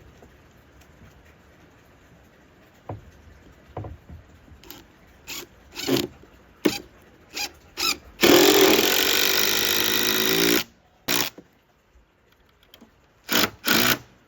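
Power drill driving screws into deck wood: several short trigger bursts, one steady run of a little over two seconds in the middle, then two more short bursts near the end.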